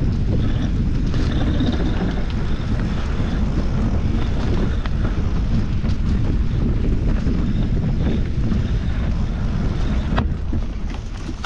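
Wind buffeting the microphone of a handlebar-mounted camera over the steady rumble and rattle of a mountain bike rolling along a dirt trail, with scattered clicks from the bike over the ground. It eases briefly near the end as the bike slows.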